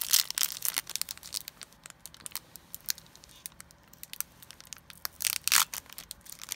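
Foil wrapper of a Yu-Gi-Oh! Pharaonic Guardian booster pack being torn open by hand, crinkling and crackling, with louder rips just after the start and about five seconds in.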